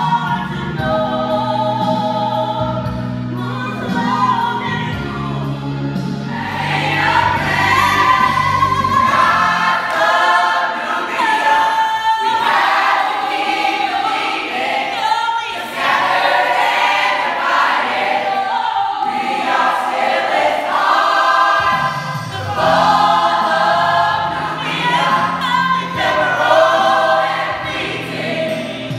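High school musical-theatre cast singing together as a choir over musical accompaniment, the sound filling out after a few seconds as more voices join.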